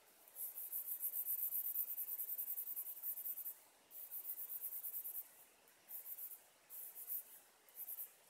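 Coloured pencil scratching on paper in rapid back-and-forth shading strokes: one long run of about three seconds, then several shorter runs broken by brief pauses.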